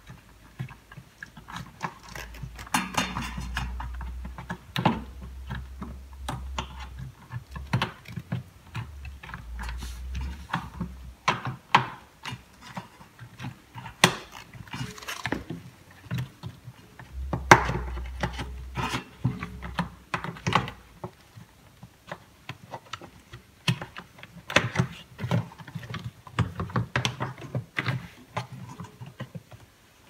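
Hands working a rubber washing-machine door seal onto the rim of the tub: irregular rubbing of rubber on the plastic tub and steel drum, with scattered sharp clicks, and a low rumble at times as the drum and tub are pressed and jostled.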